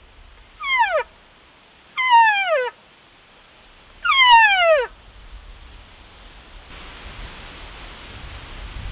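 Elk calls blown through a camouflaged elk bugle tube: three separate calls, each a pitched tone sliding steeply downward, the last the longest and loudest. Near the end, wind rushing on the microphone grows louder.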